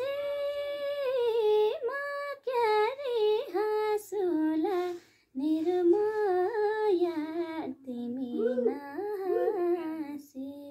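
A woman singing a song solo and unaccompanied, holding long notes with wavering, gliding ornaments and taking short breaks between phrases.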